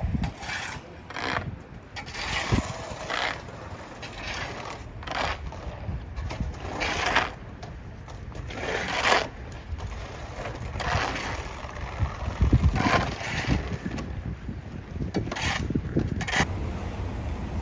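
NYC subway 4 train running, a steady low rumble with irregular scraping hisses coming every second or so.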